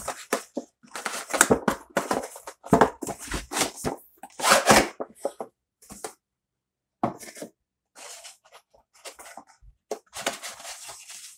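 A cardboard drone box being opened and its white molded insert tray slid out and handled: a run of scraping, rustling and sliding noises. They are busiest in the first five seconds, then turn into lighter rubs and taps.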